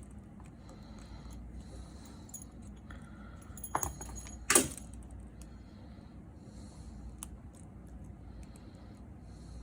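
Small metal tools and parts handled on an opened iPhone during reassembly: two sharp clicks a little under a second apart near the middle, with faint light ticks around them.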